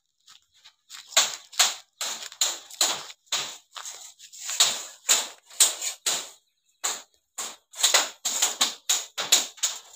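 Footsteps of someone walking over dry ground strewn with bamboo scraps and leaves: short scuffing crunches, about two to three a second, starting about a second in.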